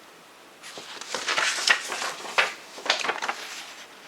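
Handling noise: a run of quick rustles and clacks, like a plastic CD case and its packaging being handled, starting about half a second in.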